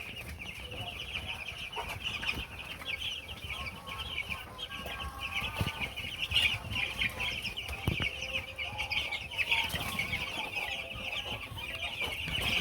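A flock of broiler chickens calling together: a dense, continuous chatter of many short high clucks and cheeps, with a few faint knocks.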